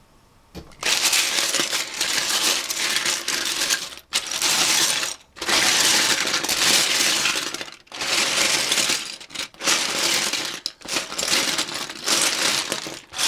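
Loose plastic Lego bricks clattering continuously as a pile of them is stirred and sifted through, in several long spells with brief pauses between.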